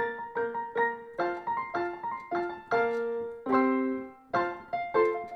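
Background piano music: a steady run of single notes, about two or three a second, with two longer held notes a little past the middle.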